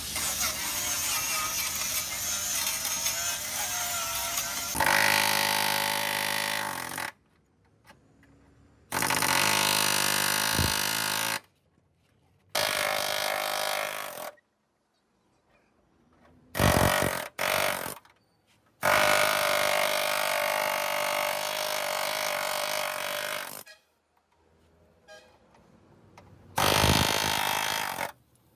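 Pneumatic air hammer with a chisel bit cutting rusted steel out of a car's rocker panel, run in bursts of about one to five seconds with short pauses between. The first few seconds are a steadier, wavering whine from an angle grinder working the same rusty sill.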